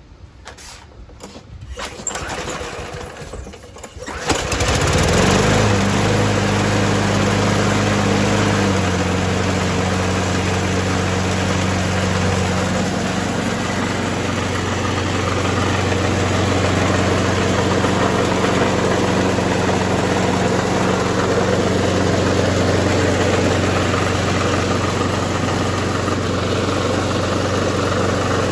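A 5 HP Briggs & Stratton Quantum walk-behind mower engine is pull-started and catches about four seconds in. It runs at a steady speed on its primer-style carburetor and fixed throttle, dropping to a slightly lower steady speed a few seconds after starting.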